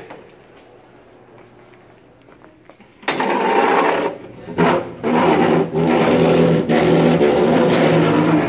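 A cafeteria chair, red plastic seat on metal legs, pushed and dragged across a hard floor. From about three seconds in its legs give a loud, buzzing scrape that breaks off briefly a few times.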